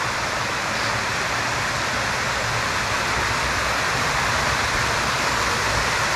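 A mountain stream running high with a lot of water: a steady, even rush of flowing water.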